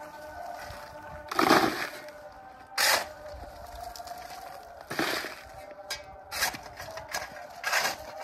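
A steel shovel scooping lumps of coal and tipping them into a plastic bucket: about five crunching scrapes and pours, roughly one every second and a half, the loudest about a second and a half in. Music plays steadily underneath.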